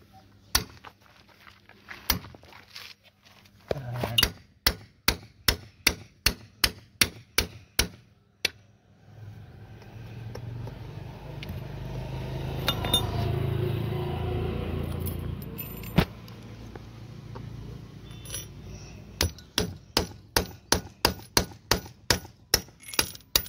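Hammer striking a steel punch to pierce the wall of an HDPE pipe: a run of sharp metallic taps at about two or three a second. The taps stop in the middle while a low rumble swells and fades, then start again near the end.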